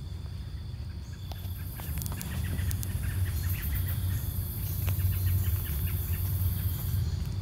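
Footsteps crunching through dry leaves and twigs on a woodland path, with many small crackles, over a steady low drone. A high hiss comes in about a second in and drops away near the end.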